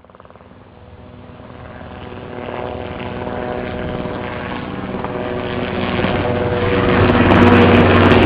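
A steady mechanical drone with a fixed low hum, swelling gradually from faint to loud and then cutting off suddenly.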